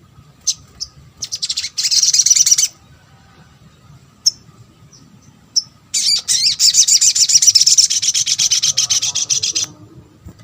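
A sogok ontong (little spiderhunter) calling. It gives a few single sharp, high chips, then a fast chattering trill about a second in lasting about a second and a half, and a longer trill of rapid notes from about six seconds in lasting over three seconds.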